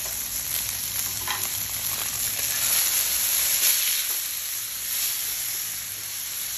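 Beef chuck steak and New York strip steak searing in oil in a hot pan: a steady sizzle with fine crackling as the crust forms.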